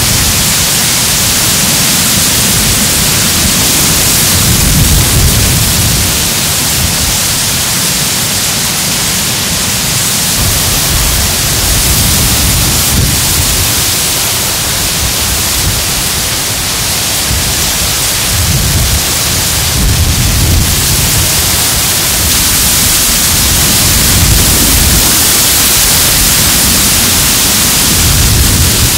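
Dry reeds rustling and knocking against one another in the wind: a steady loud hiss, with a few low swells where gusts buffet the microphone.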